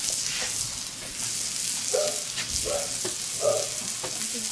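Oil and bread rolls sizzling on a hot wood-fired steel fire plate, a steady hiss.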